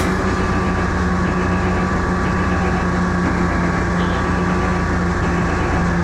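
Snowmobile engine running at a steady pitch while the machine is ridden at an even speed.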